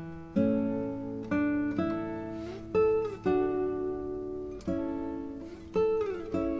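Background music on acoustic guitar: chords plucked about once a second and left to ring, some notes sliding down in pitch.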